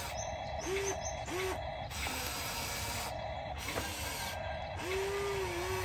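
Small electric drive motors of a toy RC excavator whining as it moves. There are two brief bursts early on, then a longer steady whine near the end.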